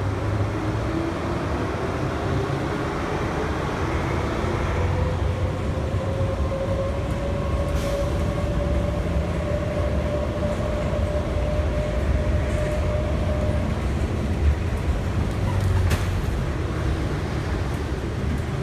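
Inside an IAH Skyway people-mover car (Bombardier CX-100, rubber-tyred) running along its guideway: a steady rumble with a motor whine that slowly rises in pitch as the car picks up speed after leaving the station, then fades about two-thirds of the way in. Two faint clicks.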